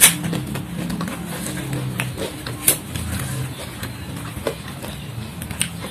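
Close-miked eating and food-handling sounds: scattered sharp clicks and crackles, the loudest right at the start and another a little before the middle, over a low steady hum.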